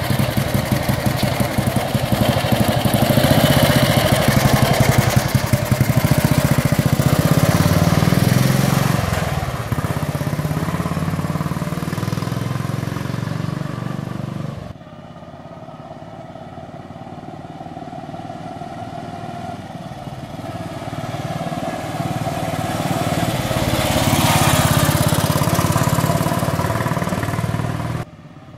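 1938 NSU 501 OSL's OHV single-cylinder engine running loudly with a steady firing beat, easing off about nine seconds in. After a sudden cut about halfway through it is quieter, then grows louder and fades again near the end.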